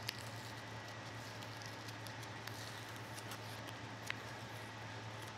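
Green painter's tape being peeled by hand off a hardened resin inlay on wood: faint scattered crackles and ticks, with a sharper click just after the start and another about four seconds in, over a steady low hum.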